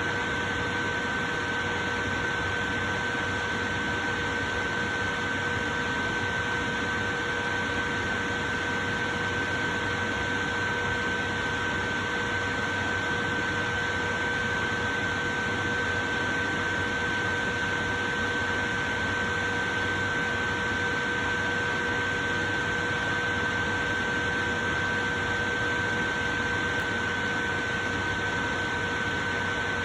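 Portable electric fan running steadily: an even rush of air with a constant hum and whine from its motor.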